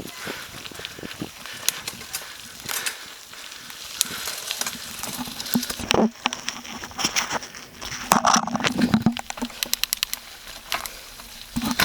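A bicycle ridden over rough ground: irregular clicks, rattles and crackles from the tyres and frame, densest in the second half.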